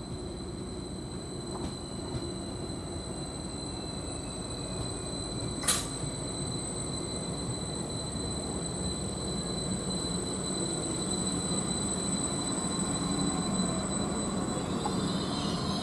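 Stadler Class 755 bi-mode multiple unit standing at a platform on its diesel power packs, with a steady low running sound and a constant high whine. A single sharp click comes about six seconds in, and the sound grows slowly louder towards the end.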